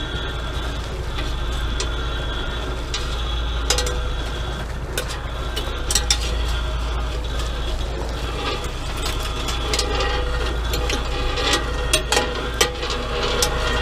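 A fishing boat's engine runs steadily while longline gear pays out over the stern. Short sharp clicks come every second or so as baited hooks on snaps are clipped onto the running groundline.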